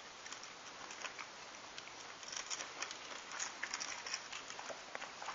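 Fingers tearing apart barbecued iguana meat and its charred skin: faint, irregular small clicks and crackles, busier in the second half.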